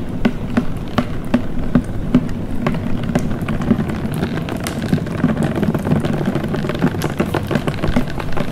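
Dense, irregular crackling and clicking over a steady low hum.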